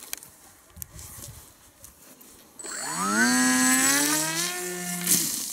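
Small electric motor of a cardboard RC plane spinning its propeller up for a hand launch. It makes a buzzing whine that rises in pitch over about a second, then holds steady, and cuts out near the end with a sharp knock.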